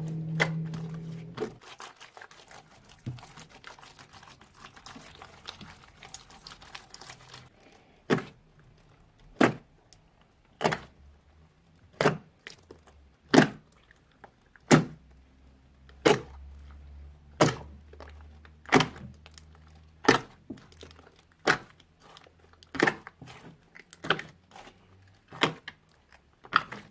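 Slime being handled: first a dense run of small wet crackles, then a regular series of sharp pops and smacks about every second and a bit.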